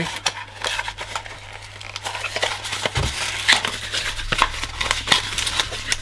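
Cardboard packaging inserts being handled and pulled out of a cardboard box: a run of short scrapes, rubs and light knocks of cardboard on cardboard.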